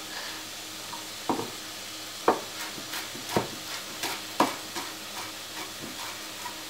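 Knife chopping herbs on a wooden cutting board: irregular sharp knocks, about two a second, starting about a second in. Under them runs the steady sizzle of sliced mushrooms frying in butter in a pan.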